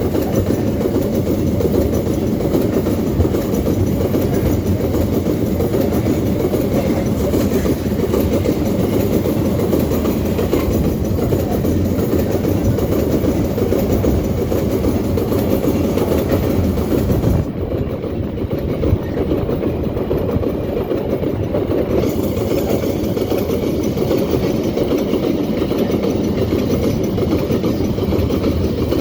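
Empty iron-ore freight train rolling past on a curve: a steady, heavy rumble and clatter of the wagons' steel wheels on the rails.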